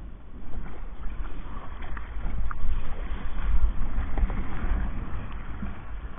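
Sea water rushing and splashing along a plastic kayak's hull as it moves through choppy water, under a heavy low rumble. It is loudest through the middle and eases off near the end.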